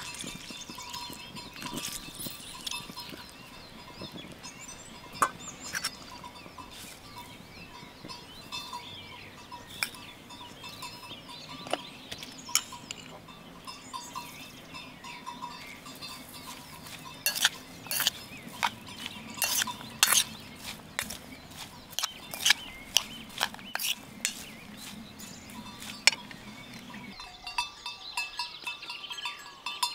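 Kitchen sounds of a salad of chopped tomato and onion being mixed in an enamel bowl, with a run of sharp clinks and taps in the second half, and faint animal calls in the background.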